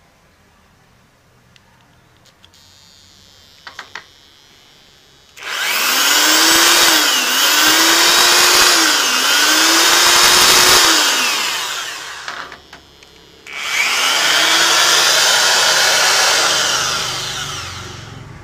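Corded 500 W power drill run from a homemade square-wave inverter, switched on twice. It spins fast but buzzes and vibrates from the square-wave supply, its speed sagging and picking up again three times during the first run. Each run winds down as it is switched off.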